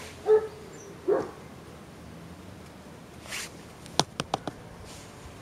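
A puppy being treated for lice yelps twice in the first second or so, two short pitched cries. About three seconds in comes a short hiss, then four quick sharp clicks.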